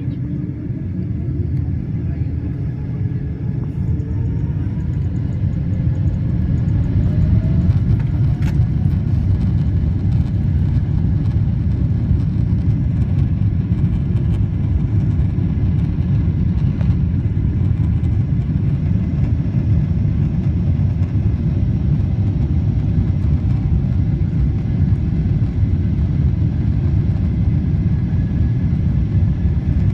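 Boeing 777 jet engines spooling up to takeoff thrust: the rumble builds over the first several seconds, with a faint rising whine, then holds as a loud, steady rumble.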